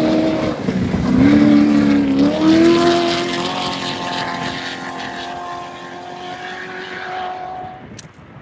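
Off-road race vehicle's engine running hard at high revs, its pitch climbing in steps as it goes by. It then fades steadily as it pulls away, and cuts off abruptly near the end.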